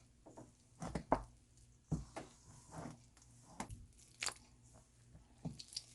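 Hands mixing and kneading crumbly murukku dough of gram flour, rice flour and butter with water in a bowl: faint, irregular squishes and crunches.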